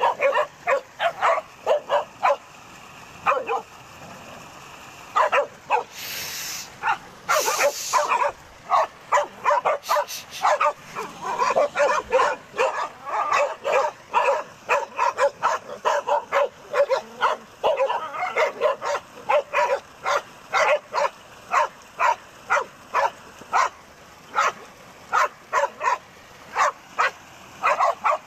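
Dog barking and yipping rapidly and loudly, about three sharp barks a second with hardly a pause. Two short hisses come about six and seven and a half seconds in.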